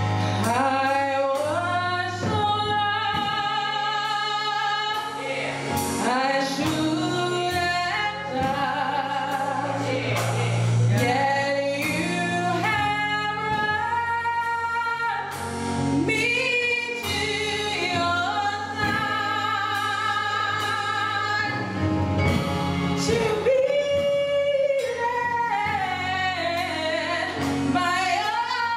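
Gospel choir singing with a female lead voice over instrumental accompaniment, the lead holding long wavering notes.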